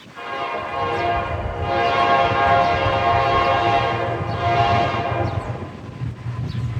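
Diesel locomotive horn sounding one long blast of about six seconds that fades near the end, over the low rumble of the train.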